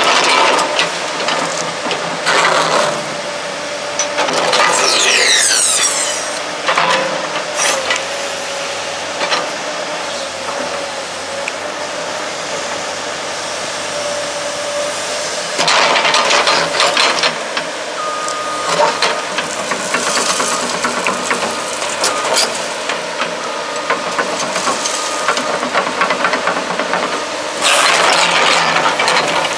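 Komatsu PC200LC-8 hydraulic excavator running, its diesel engine and hydraulic pump working steadily as the boom, arm and bucket move. Loud bursts of hissing come and go a few times over the steady machine noise.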